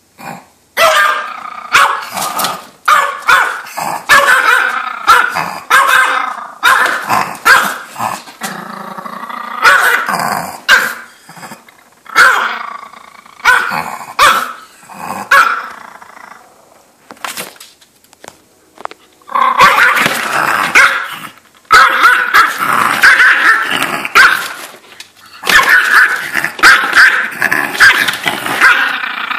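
Small terrier growling and barking in short, loud bursts, with longer unbroken stretches of growling in the last ten seconds: the dog is guarding a pizza box against a hand reaching toward it.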